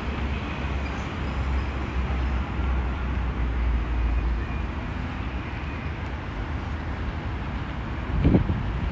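Steady city traffic noise from the surrounding streets, a constant low rumble with a hiss of passing cars, and a couple of low bumps near the end.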